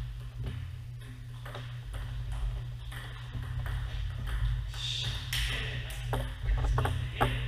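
Table tennis rally: the ball clicks sharply off the paddles and the table in a quick back-and-forth. The rally stops a little past halfway, and a run of ball bounces clicks near the end.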